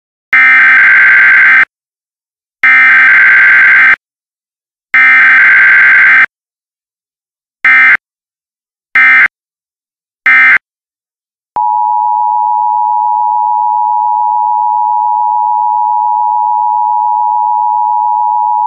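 Emergency Alert System tones: three long screeching bursts of digital SAME data, then three short bursts. About eleven seconds in, the steady two-tone EAS attention signal starts and holds to the end.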